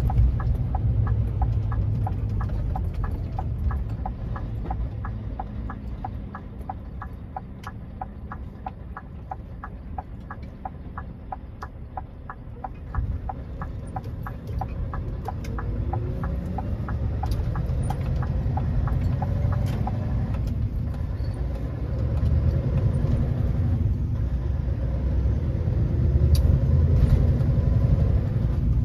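Lorry cab: the diesel engine rumbles under a steady ticking of the turn indicator, which stops about sixteen seconds in as the lorry makes its right turn. The engine then pulls away, rising in pitch, and grows louder near the end.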